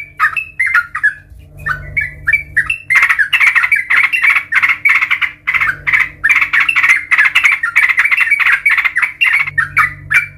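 Yellow-vented bulbul calling: a few short sharp notes, then from about three seconds in a long rapid chattering run of many notes a second that breaks off shortly before the end. A faint steady low hum lies beneath.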